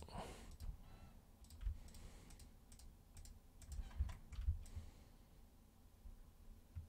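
Faint, scattered clicks of a computer mouse and keyboard, with a few soft low thumps, the clearest about four and four and a half seconds in.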